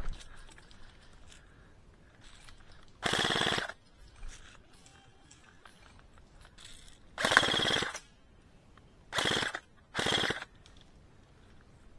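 Airsoft replica rifle firing four short full-auto bursts, each a rapid rattle of shots lasting about half a second.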